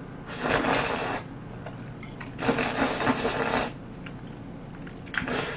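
Three slurps of glass noodles from soupy tteokbokki: two long ones of about a second each, then a short one near the end.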